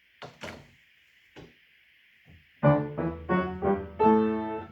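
Piano playing a song introduction, coming in about halfway through with short repeated chords over a held low bass note. A few faint short sounds come before it.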